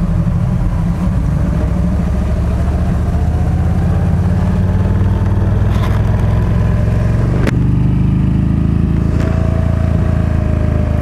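Yamaha V-Star 1300's V-twin engine running steadily at a low cruise, heard from on the bike. A single sharp click about seven and a half seconds in.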